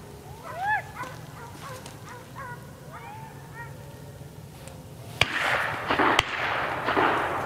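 Hunting hounds yelping and baying in short rising-and-falling cries, a few in the first half. About five seconds in, a sudden loud rush of noise with two sharp cracks takes over and is the loudest sound.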